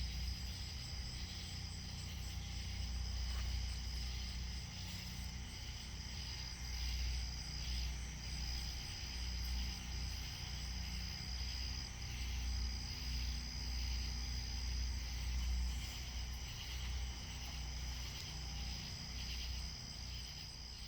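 Chorus of night insects chirring steadily outdoors, with one constant high trill above the rest. An uneven low rumble runs underneath, and the sound fades slightly toward the end.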